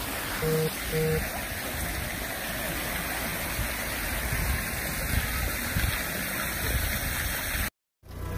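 Wind buffeting the phone's microphone: a steady rushing noise with an unsteady low rumble. Near the start there are two short low beeps about half a second apart, and the sound drops out briefly near the end.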